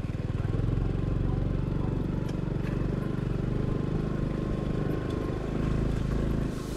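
Motorcycle engine running steadily while riding along a muddy dirt road, heard from the rider's seat.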